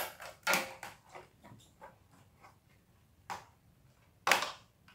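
Scissors snipping through toy packaging: a few separate sharp cuts, one about half a second in, one past three seconds, and the loudest near the end.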